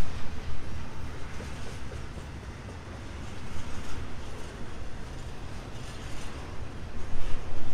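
Norfolk Southern freight train rolling past, its wheels clacking on the rails, dipping in the middle and getting louder again near the end.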